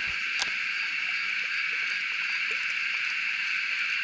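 Steady chorus of insects, an even high-pitched drone that holds without a break, with a couple of faint clicks.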